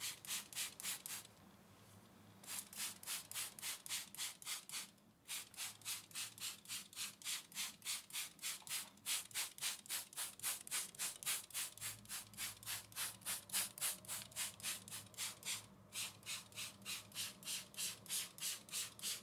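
Trigger spray bottle misting houseplants with water: quick, regular spritzes of about four a second, with a short pause about a second in and another near five seconds.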